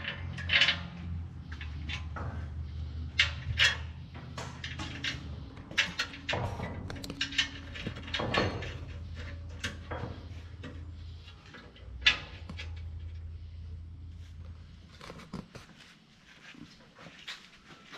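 Irregular metallic clicks and knocks of tools and bolt hardware as nuts are fitted and tightened on a steel skid plate, over a steady low hum that stops near the end.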